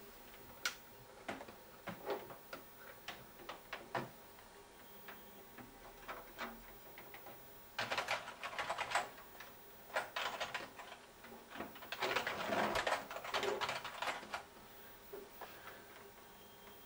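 Fingers pressing buttons and typing on a computer keyboard: scattered single clicks, with two spells of rapid key clatter about eight and twelve seconds in.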